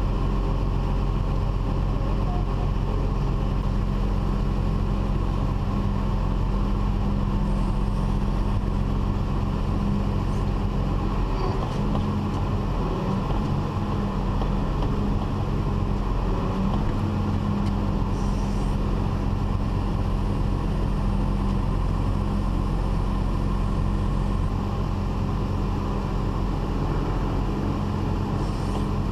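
Large farm machine's diesel engine running at a steady speed: a constant low hum with an even mechanical hiss above it.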